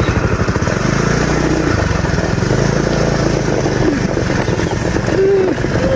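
Motorcycle engine running, pulsing at first and settling into a steady, higher note about a second in.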